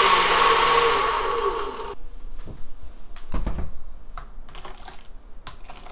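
Countertop blender running for about two seconds to mix a purée of pear, onion and soy sauce with water, then switching off. A few clicks and knocks follow as the glass jar is handled, with one heavier thud.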